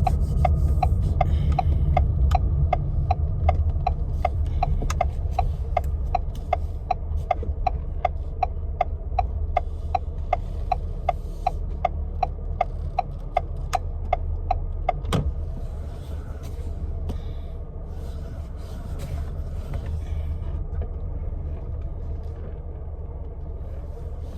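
Car's turn-signal indicator ticking about three times a second over the low hum of the engine and road inside the cabin. The ticking stops with a sharper click about fifteen seconds in, leaving only the quieter steady engine hum.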